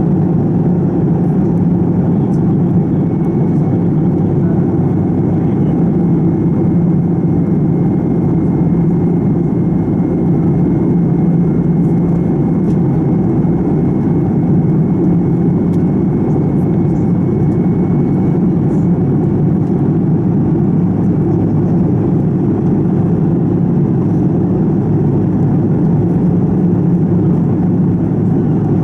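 Steady drone of a Fokker 70's rear-mounted Rolls-Royce Tay turbofan in flight, heard from inside the cabin right beside the engine. A faint high whine sits over it and fades out past the middle.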